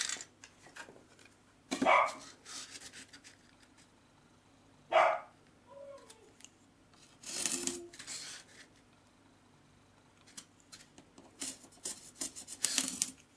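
Scattered rubbing, scraping and light taps of craft tools on a styrofoam sheet, the sounds of measuring and marking it. A few louder scrapes stand out, about two, five, seven and a half and thirteen seconds in.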